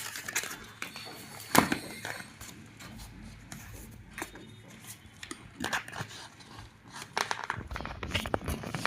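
Keyboard packaging being handled and opened: scattered rustles, scrapes and light clicks, with one sharp knock about one and a half seconds in and busier clicking near the end.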